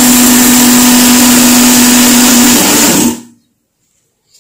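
Loud electric blender running steadily, a constant hum with a high whine, mixing runny cake batter of sugar, oil, eggs and vanilla essence. It is switched off about three seconds in, the hum wavering as the motor stops.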